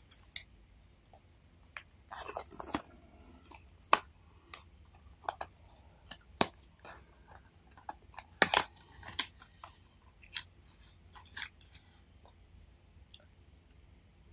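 Cardboard blind box being handled and opened by hand: a string of short clicks, taps and rustles from the card stock and its flaps, with louder rustling about two seconds in and again around eight and a half seconds.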